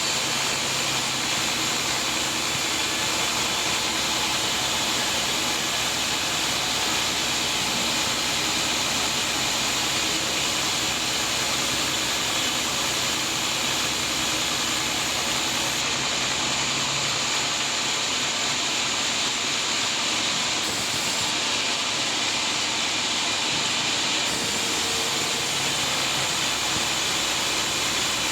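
Sawmill saw running through a large teak log: a steady, loud, hissing machine noise with a low hum under it that fades out about two-thirds of the way through.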